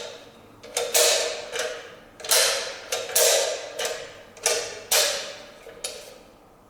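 Aluminium clamps of a stage curtain drop controller being handled by hand: a string of about ten metallic clicks and clacks, each with a short ringing tail, dying away about a second before the end.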